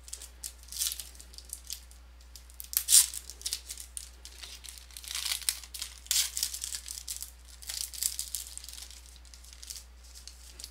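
Foil wrapper of a Panini trading-card pack being torn open and crinkled by hand, in irregular bursts with the sharpest rip about three seconds in.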